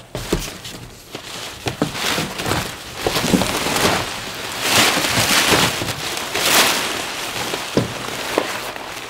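Plastic packing sheeting crinkling and rustling as it is pulled out of a large cardboard box, with knocks of cardboard among it.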